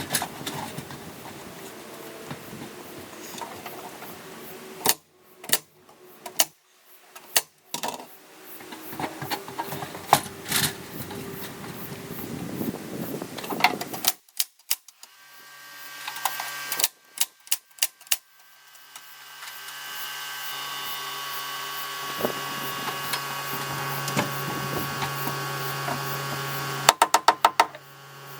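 Nailing on wall sheathing: a series of sharp knocks over background noise. About two-thirds of the way through a steady hum comes in, and a quick run of knocks sounds near the end.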